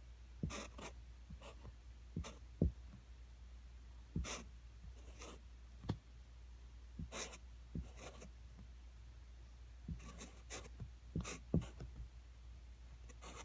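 Sharpie marker drawing on poster board in short, irregular strokes, with a few light knocks in between; the loudest knock comes about two and a half seconds in.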